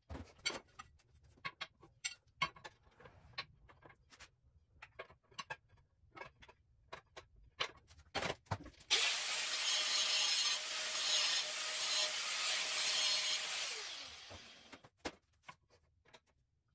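Light clicks and knocks of steel tubing being handled, then a power tool runs for about five seconds and winds down.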